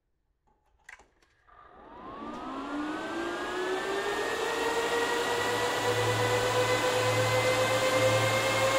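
Bitmain Antminer S19j Pro's cooling fans spinning up after power-on: a couple of clicks, then a whine of several tones that rise in pitch and grow louder before settling into a steady high fan drone. A low pulsing hum joins about five seconds in.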